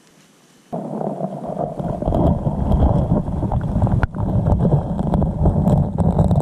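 Creek water rushing and gurgling as heard by a submerged camera: a muffled rumble that starts suddenly under a second in, with scattered clicks and knocks as the streambed silt is stirred up.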